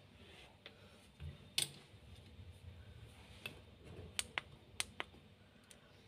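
Faint, scattered sharp clicks and light taps, about eight in all, with a dull low knock a little over a second in and the clearest click just after it.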